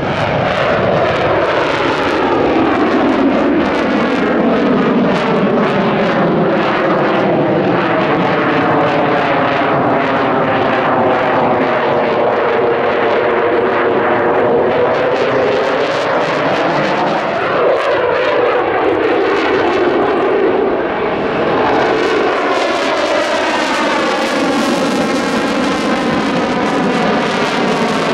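Eurofighter Typhoon FGR4 fighter jet manoeuvring overhead, its twin Eurojet EJ200 turbofans giving loud, continuous jet noise. The tone sweeps up and down as the aircraft moves and turns. The hiss dips briefly about twenty seconds in, then comes back stronger.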